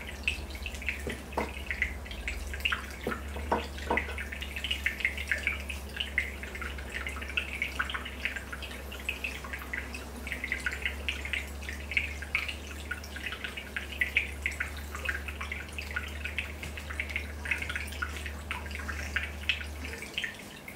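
Aquarium air bubbles streaming up from an airstone and breaking at the water surface, a dense patter of small pops and splashes. Beneath them is a low steady hum that stops just before the end.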